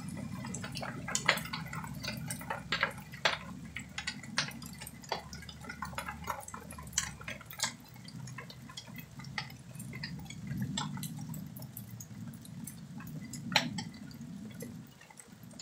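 Water dripping during a thunderstorm: irregular sharp drops landing one after another, a few louder than the rest, over a low steady noise.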